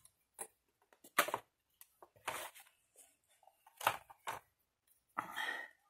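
Hands handling stiff cardstock and paper: several short, separate rustles and light taps, the longest one near the end.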